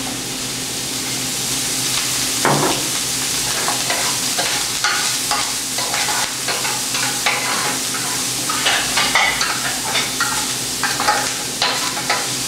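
Chopped pork sausage with garlic and onion sizzling in olive oil in a metal sauté pan, with a spoon scraping and clicking against the pan as it is stirred.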